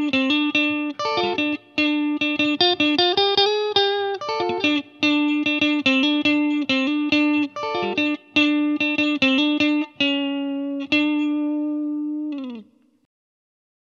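Fender Stratocaster on the neck-and-middle pickup position through the Line 6 Helix 'US Deluxe Nrm' amp model, a lightly driven Fender Deluxe Reverb-style tone, playing a single-note lead line of quickly picked notes around a repeated note. It ends on a long held note that drops in pitch and stops about twelve and a half seconds in.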